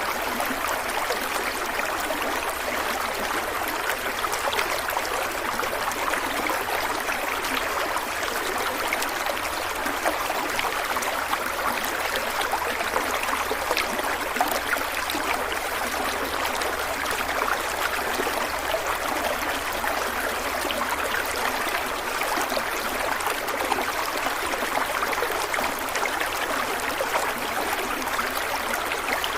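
Stream water running and babbling steadily over rocks, a continuous splashing rush without breaks.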